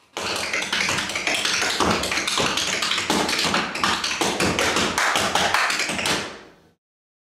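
Tap shoes striking a hard floor in a fast, dense tap dance rhythm that fades out near the end.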